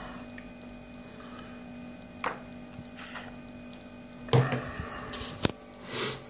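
Scattered handling knocks and clicks as a phone and its USB cable are handled and connected to a laptop, the loudest a knock a little past four seconds in, then a sharp click of a computer mouse, over a steady electrical hum.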